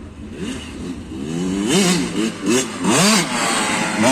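KTM 65 SX single-cylinder two-stroke engine, its top end freshly rebuilt, revving in a series of quick throttle blips, the pitch rising and falling each time. It gets louder from about a second in.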